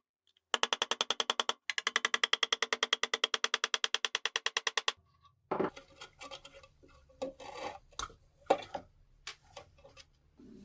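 Rapid, evenly spaced tool strokes, about ten a second, that stop suddenly about five seconds in. Scattered clicks and knocks of handling follow, over a low hum.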